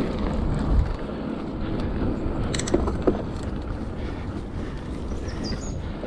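Mountain bike rolling over a dirt singletrack, with a steady rumble of tyres and wind buffeting the camera microphone. Two sharp clicks come about halfway through.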